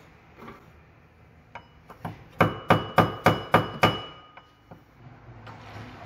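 Hammer tapping a suspension cap to knock it loose: a faint tick or two, then about six sharp strikes at roughly three a second with a faint metallic ring, and two lighter taps after.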